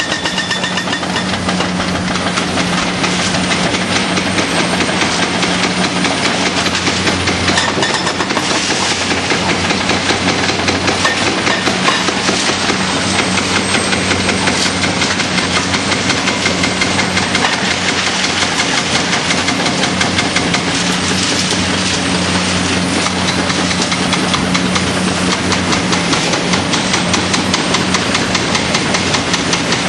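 Excavator-mounted hydraulic breaker hammering into the concrete viaduct in a fast, continuous clatter, over the excavator's diesel engine running steadily.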